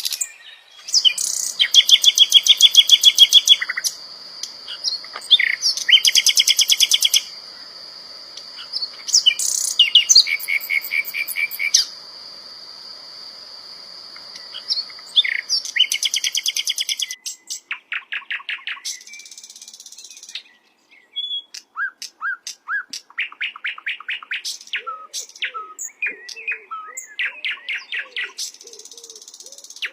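Sikatan londo flycatcher singing: fast rattling trills over a long, steady, high whistle, then a run of quick, varied chirps and short notes in the second half.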